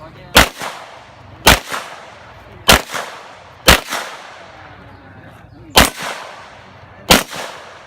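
Pistol shots, six in all, fired at uneven gaps of one to two seconds with a longer pause after the fourth, each shot followed by a short echo.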